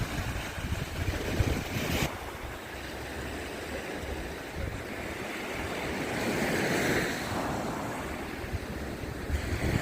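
Sea waves breaking and washing onto the shore, with wind buffeting the microphone. A wave swells and washes in louder about six to seven seconds in.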